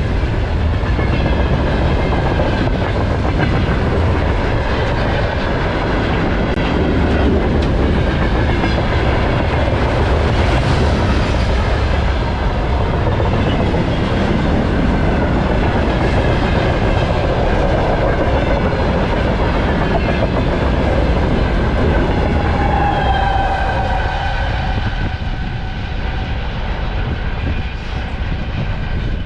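Freight train wagons rolling past at high speed, the wheels clattering over the rail joints with faint high metallic ringing, easing off a little near the end.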